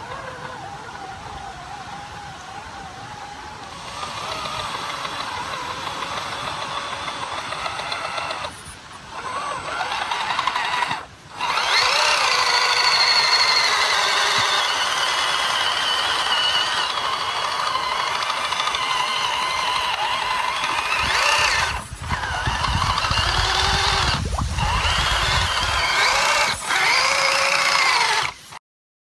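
Electric motor and gear drivetrain of a scale RC rock crawler whining while driving through muddy water, the whine rising and falling in pitch with the throttle. It breaks off briefly a few times, gets louder about eleven seconds in, and stops suddenly near the end.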